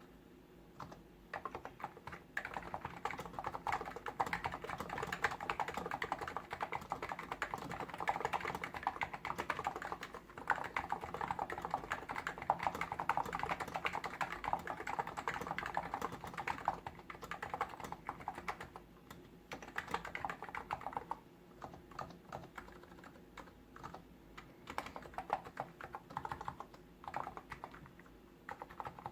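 Fast, continuous typing on a Hansung GTune CHL8 tenkeyless keyboard with electrostatic capacitive (contactless) switches, a dense run of keystrokes starting about a second in, broken by short pauses about ten, nineteen and twenty-one seconds in.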